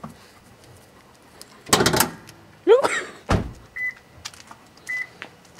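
Toyota Prius driver's door being shut with a thump about three seconds in, then two short high beeps from the car about a second apart. The beeps warn that the hybrid is still on while its smart key is out of range.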